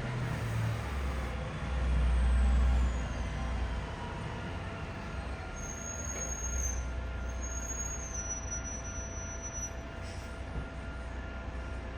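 A large machine running steadily, a low rumble with a heavier surge lasting about a second, around two seconds in.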